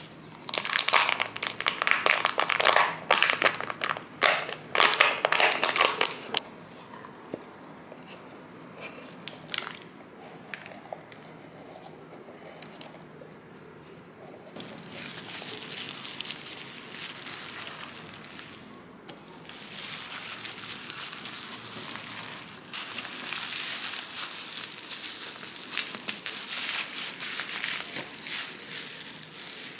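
Thin cured Jesmonite sheets crunching and snapping into small terrazzo chips, with plastic bubble wrap crinkling around them. It comes in loud bursts of crackling for the first six seconds, quieter crumbling of chips in a plastic cup in the middle, and steady crunching again from about twenty seconds in.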